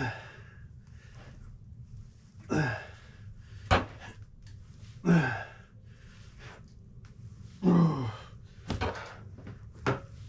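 A man's strained, falling-pitch exhales of effort, one about every two and a half seconds, during a hard set of leg exercise. A few sharp knocks fall between them.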